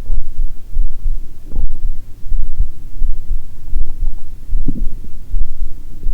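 Human heartbeat: a steady run of regular low thumps. A short stomach gurgle rises over it about three-quarters of the way through.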